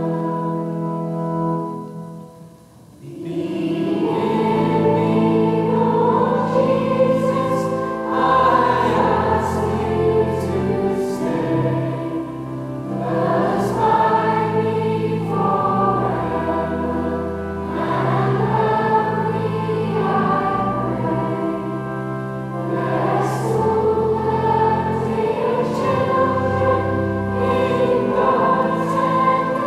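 School choir singing a carol in a church, holding long notes. The singing breaks off briefly about two seconds in, then carries on.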